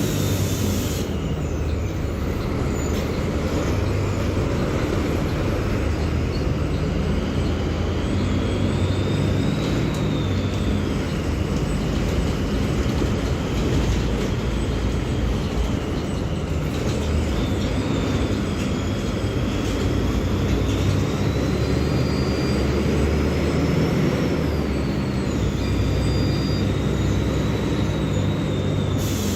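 Mercedes-Benz OF-1724L Bluetec 5 bus's diesel engine running under way, a steady low hum with a high whine that rises and falls several times as the bus speeds up and slows.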